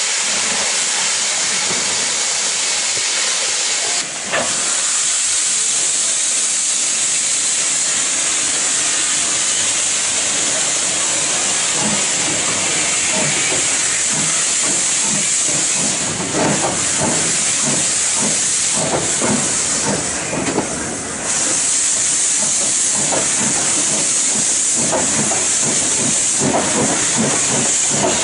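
Two steam locomotives double-heading, a Caledonian 0-6-0 and an LMS Jinty 3F 0-6-0 tank engine, hissing loudly with their cylinder drain cocks open. From about twelve seconds in, exhaust chuffs come through and quicken as the train gathers speed.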